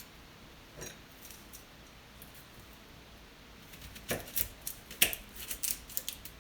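Quiet kitchen room tone with a faint click about a second in, then from about four seconds on a run of sharp clicks and knocks as kitchen items are handled.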